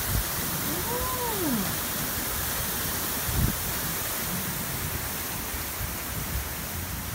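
Steady rushing wind through trees, with one short call that rises then falls in pitch about a second in and a low bump a little after three seconds.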